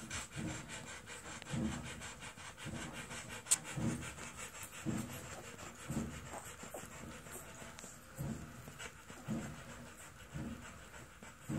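Rottweiler dam panting steadily with her mouth open, about one breath a second, as she nurses her puppies. One sharp click about three and a half seconds in.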